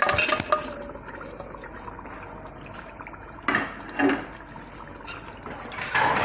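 Pieces of meat tipped into a pot of bubbling tomato soup, splashing with a clink in the first half second. A metal ladle then stirs and knocks in the pot a few times, over the steady bubbling of the simmering soup.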